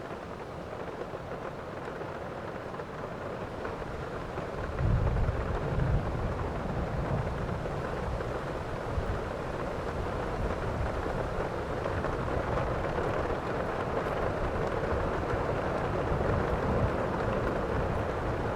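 Steady heavy rain, with a low rumble of thunder that rolls in about five seconds in and keeps rumbling beneath the rain.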